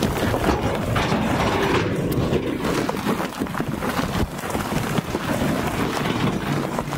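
Stone rattling and sliding out of the raised beds of tipping 18-ton dump trucks, a continuous clatter of many small knocks over the running of their diesel engines.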